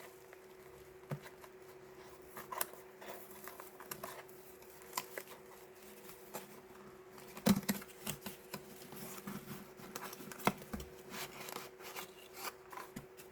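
Quiet handling sounds of a fountain-pen ink bottle being unpacked from its box: scattered small clicks, taps and rustles, with a louder knock about seven and a half seconds in and another about ten and a half seconds in, over a faint steady hum.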